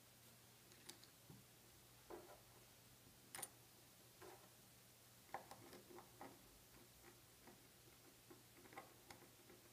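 Near silence broken by faint, scattered clicks and light taps of small metal parts being handled: a thin ring and a hex key against a can seamer's roll-and-pin assembly. The sharpest click comes about three and a half seconds in.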